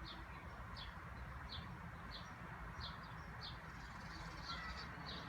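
Ford 5.4L 3V V8 idling with a faint, steady low rumble. A short high chirp repeats on top of it about every two-thirds of a second.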